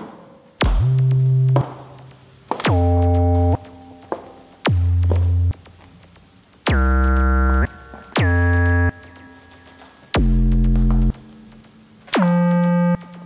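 Electronic soundtrack music: a synthesizer plays seven loud, held low notes, each about a second long, separated by short quiet gaps. Each note opens with a sharp attack that swoops quickly down in pitch.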